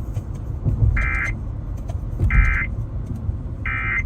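Emergency Alert System end-of-message signal: three short, identical buzzy digital data bursts, each about a third of a second long and about 1.3 s apart, marking the close of the alert. A steady low rumble runs underneath.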